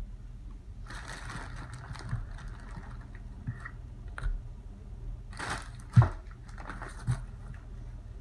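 Hard shea butter being crumbled by hand into thick hot process soap batter: crunching and crackling with scattered clicks, and a sharp knock about six seconds in.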